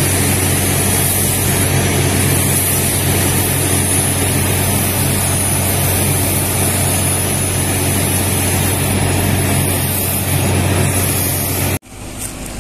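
Truck-mounted water-well drilling rig running steadily under load, a low engine drone with a high hiss over it, as the stuck drill string is worked loose. The sound drops off abruptly near the end.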